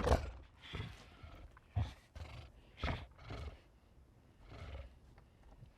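Werewolf creature growling in a string of short snarls, about one a second, the loudest right at the start.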